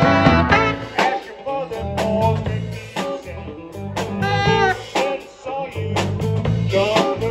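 Live band playing a bluesy jazz number: saxophone melody over a drum kit and keyboard, with a drum hit about once a second.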